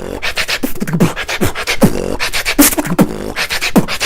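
Beatboxing: a fast vocal beat of mouth-made kick drums, snares and hi-hat clicks, several hits a second.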